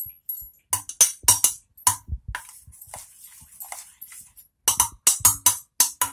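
A steel spoon clinking against a steel pot as gram-flour batter is stirred briskly: two runs of sharp metallic clinks, a few a second, with softer scraping between them.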